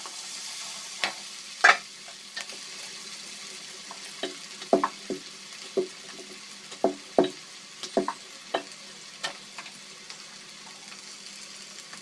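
Chopped onion and capsicum sizzling in a non-stick kadhai as a wooden spatula stirs them: a steady frying hiss with irregular knocks and scrapes of the spatula against the pan.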